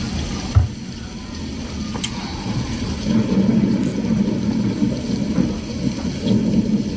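Close-miked chewing and mouth sounds of a person eating dry, crumbly mashed potato, with a brief thump about half a second in.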